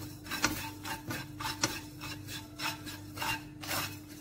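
Spatula scraping and stirring nigella seeds (kalonji) across the floor of a nonstick kadhai as they dry-roast, in repeated irregular rubbing strokes.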